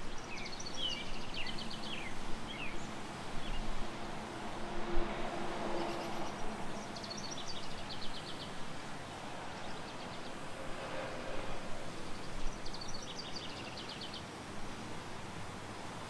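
Weaver bird giving bouts of rapid, high chattering calls three times, alarm calls at a snake raiding its hanging nest, over steady background noise.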